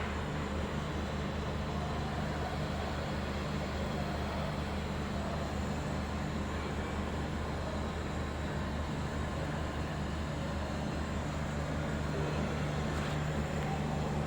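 Welding a pipe nipple into a vessel: a steady hiss over a low, steady machine hum.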